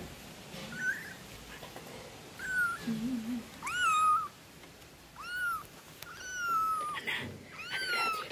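Very young kitten mewing repeatedly: about six thin, high-pitched mews, each rising and then falling in pitch, growing louder from a few seconds in.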